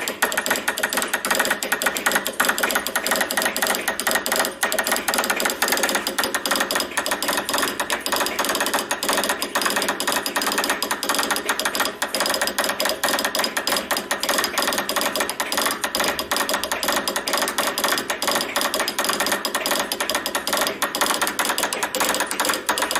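Morse code straight key worked at high speed, its lever and contacts making a fast, unbroken run of sharp clicks.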